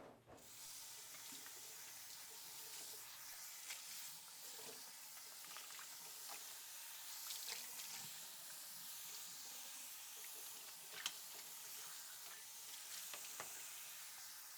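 Faint, steady hiss with a crackle of small scattered clicks.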